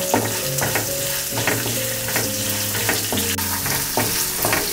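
Sliced onions and whole spices sizzling in hot oil in a frying pan, being sautéed until translucent. A wooden spatula stirs them, scraping and knocking against the pan about twice a second.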